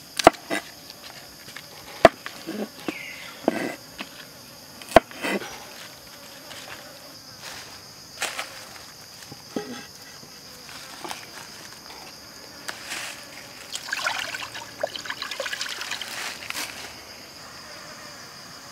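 Knife chopping bok choy on a wooden cutting board: a handful of sharp, separate strikes in the first five seconds, over a steady high drone of insects. About two-thirds of the way through comes a few seconds of scattered crackling and rustling.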